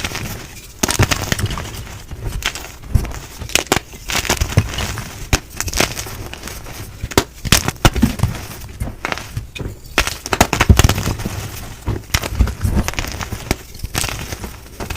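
Blocks of gym chalk being crushed close to the microphone: a dense, irregular run of crisp crunches and snapping cracks with powdery crumbling between them.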